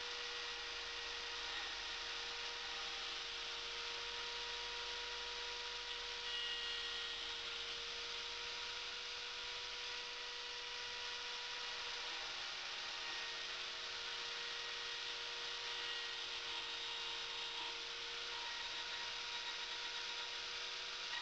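Wood router running at high speed with a steady whine, its bit cutting a wooden turning that spins on a lathe, with the lathe running under it.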